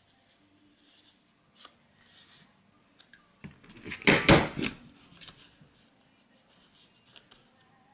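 Star border paper punch pressed down through a strip of gold mirror card: one loud clack and crunch lasting about half a second, about four seconds in. Lighter clicks before and after as the strip is set in the punch.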